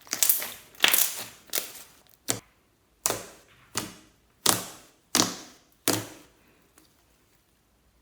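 Fluffy slime being pressed and squeezed by hand, giving a series of about nine sharp pops and clicks from trapped air, roughly one every second, stopping about six seconds in.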